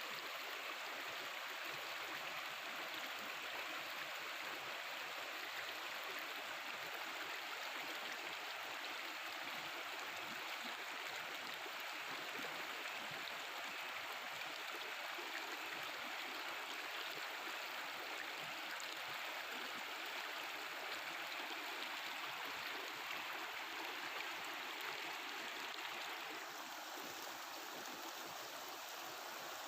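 Mountain river flowing and babbling over its bed, a steady rush of water that eases slightly near the end.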